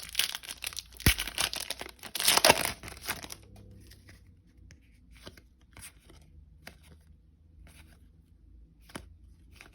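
Foil trading card pack wrapper crinkling and tearing for about three seconds, then light scattered ticks and rustles of cards being handled.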